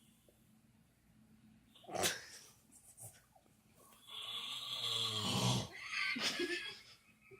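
Snoring: a short snort about two seconds in, then a long, loud rattling snore from about four seconds in, with a further snort near the end.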